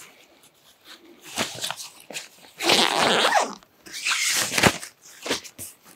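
Rustling of a synthetic rain cover being pulled down and smoothed over a tent's fabric walls, in three irregular surges, the longest about halfway through.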